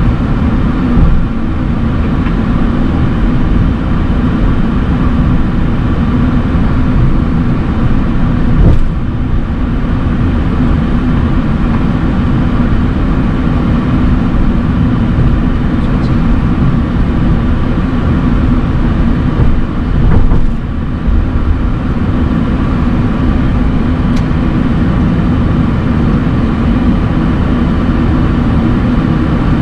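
Steady flight-deck rumble and hum of a Boeing 737-800 taxiing on its CFM56-7B engines, with two short thumps about nine and twenty seconds in.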